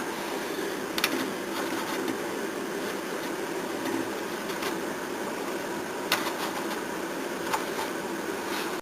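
A steady mechanical hum, with a few light clicks of handling: one about a second in, and two more after six and seven seconds.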